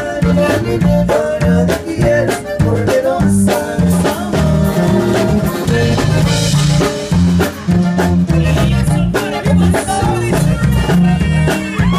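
Live band playing an up-tempo Latin song in an instrumental stretch without singing: electric bass and drum kit with percussion under a melodic lead line.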